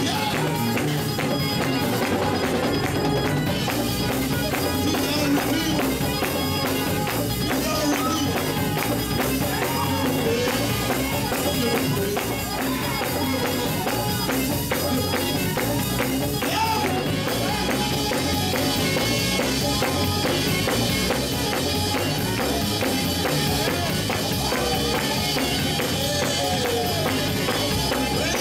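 Fast church praise-break music with tambourine and drums keeping a steady, driving beat.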